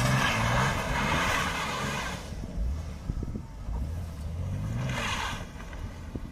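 Toyota Aristo's 2JZ-GTE twin-turbo straight-six revving in two bursts, rising and falling, while the car slides round in donuts on snow. Each burst comes with a rushing hiss: the first over the opening two seconds, the second about five seconds in.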